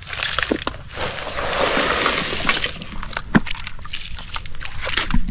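Wet gravel sliding out of a tipped plastic toy dump truck bed into shallow muddy water: a rush of pouring, rattling stones from about one to three seconds in, with a few sharp clicks of stones and plastic.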